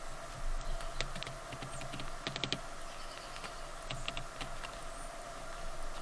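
Red-bellied woodpecker pecking at seed on the feeder right by the microphone: sharp taps, one about a second in, a quick run of several about two and a half seconds in, and a few more around four seconds.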